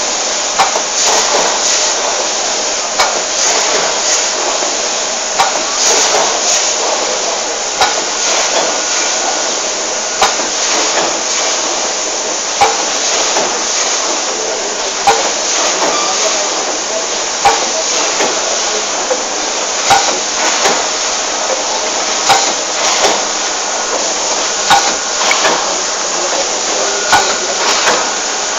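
Full-pneumatic dal pouch packing machine running: a steady hiss with a sharp knock about every two and a half seconds as it works through its packing cycle.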